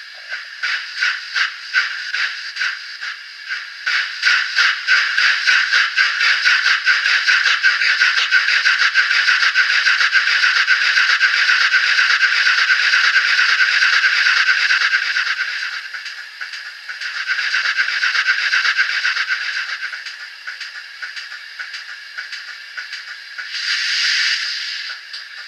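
DCC sound decoder in a Graham Farish N gauge Castle class model steam locomotive, playing its steam sounds through a tiny speaker. The exhaust beats quicken until they merge into a continuous rush, then ease and slow back to separate beats as the loco coasts with the throttle closed and is braked. There is a short burst of hiss near the end.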